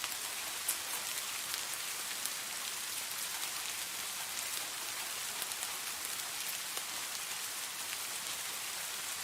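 Steady rain falling, an even hiss with the sharp ticks of individual drops hitting a hard surface scattered through it.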